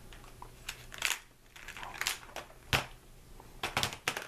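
Metal code rods clacking and rattling against a clear plastic organizer case as they are set into its compartments: a few sharp knocks about a second apart, then a quick cluster near the end.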